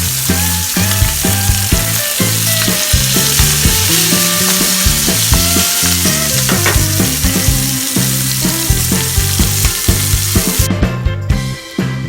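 Food sizzling hard in hot olive oil, a dense steady hiss that cuts off suddenly about a second before the end. Background music plays underneath.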